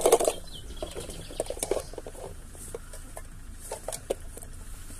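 Small puppies at wet food, making irregular short smacking and clicking sounds as they start to eat.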